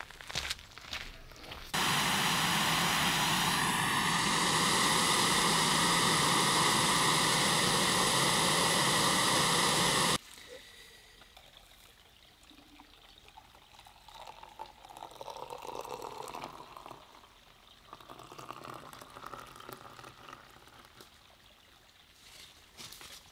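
Water pouring steadily into a pot for about eight seconds, its pitch rising slightly early on, then stopping abruptly; quieter handling sounds follow.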